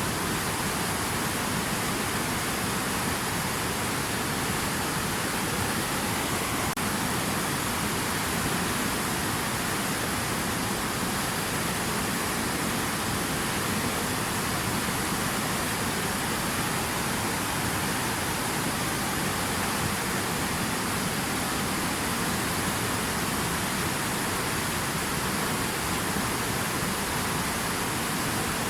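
Steady rushing water: an even, unbroken hiss with no pauses or changes.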